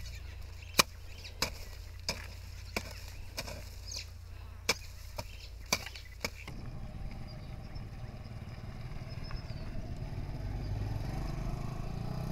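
A hand hoe chopping into dry soil in short, sharp strikes, about one and a half a second. About halfway through the strikes stop and a motorcycle engine takes over, running steadily and growing louder as it comes closer.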